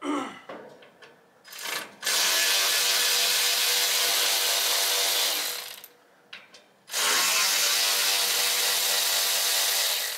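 Power drill/driver motor running in two long steady bursts of about four and three seconds, with a short pause between, while taking apart the condenser fan assembly.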